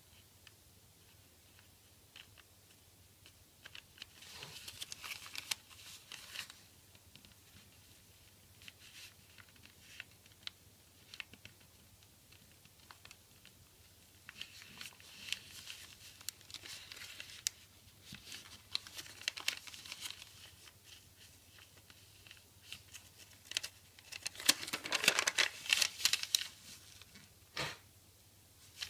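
Sheet of origami paper being folded and creased by hand, rustling and crinkling in several bursts, loudest near the end.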